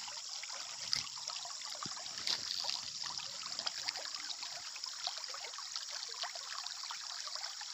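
Water trickling steadily, with a couple of faint clicks about one and two seconds in.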